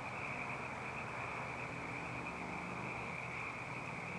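A steady, high-pitched night chorus of calling animals, with a faint low hum underneath.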